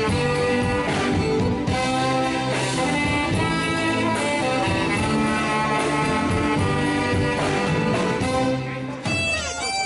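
Live band playing a 1970s pop song, with a horn melody over a steady beat. The music drops away briefly about nine seconds in, then resumes.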